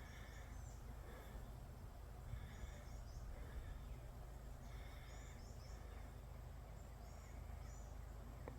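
Songbirds singing faintly, short high chirping phrases repeated every second or two, over a steady low outdoor rumble.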